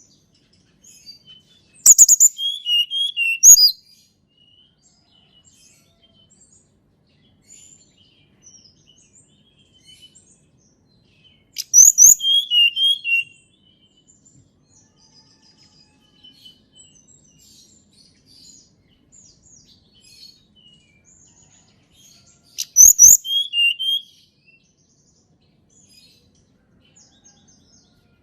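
Tledekan gunung singing three short phrases about ten seconds apart, each a sharp high note or two followed by a quick run of lower warbled notes, with faint chirps in the pauses between.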